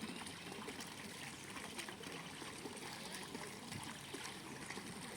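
Mineral spring water trickling and splashing steadily.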